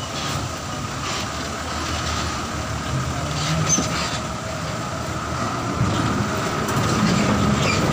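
Mitsubishi Fuso dump truck's diesel engine running at low revs as the truck creeps through floodwater, growing louder near the end as it passes close. Water washes around its tyres, and a steady high whine runs underneath.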